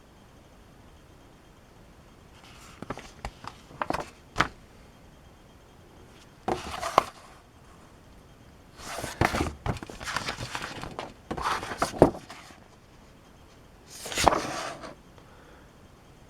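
Hands handling model kit contents: several short bursts of paper or plastic rustling, with a few sharp clicks and taps in between.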